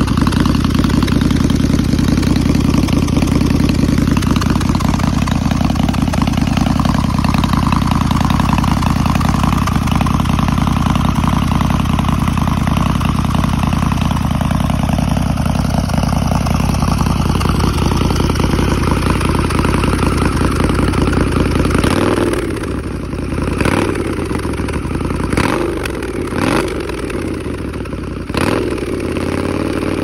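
Harley-Davidson Night Rod Special's liquid-cooled 1250 cc Revolution V-twin running through exhausts fitted with Daytona inner silencers and extra glass-wool packing: a steady idle, then about two-thirds of the way in, a handful of quick throttle blips, each a short rise and fall in pitch.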